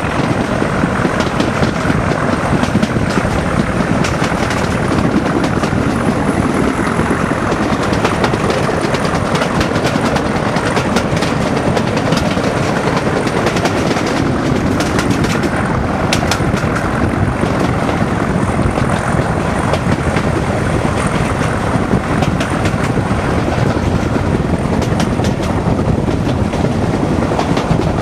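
Class 37 diesel locomotive's English Electric V12 engine working hard at the head of a train, heard from an open coach window with wind rushing past and the clickety-clack of wheels over rail joints.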